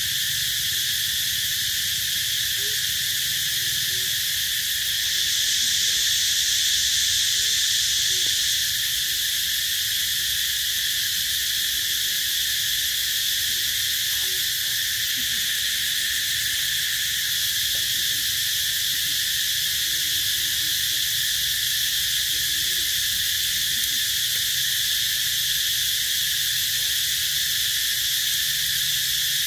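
Steady, high-pitched drone of a chorus of insects, swelling slightly about five seconds in and settling back a few seconds later.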